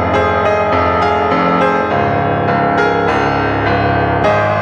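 Instrumental background music: keyboard notes and chords struck every half second or so over a held low bass.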